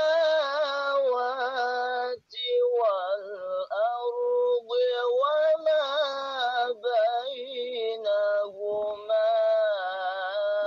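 A high-pitched singing voice holding long, wavering notes in short phrases, with brief breaks between them.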